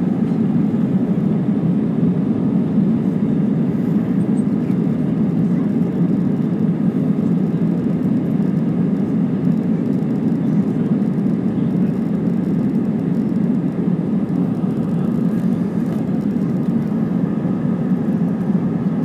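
Steady cabin noise inside an Airbus A320-family airliner taxiing: an even hum of the jet engines and the cabin air system, with no change in power.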